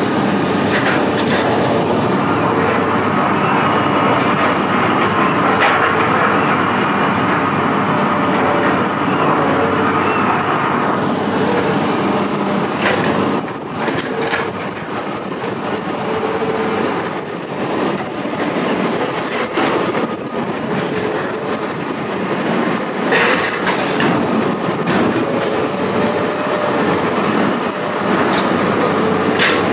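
Scrap metal clanking and scraping as it is loaded into a heavy truck, over the steady running of heavy machinery, with several sharp metal knocks in the second half.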